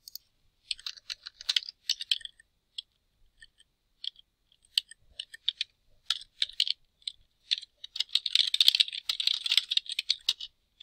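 Typing on a computer keyboard: irregular runs of key clicks with short pauses between them, turning into a fast, dense flurry about eight seconds in.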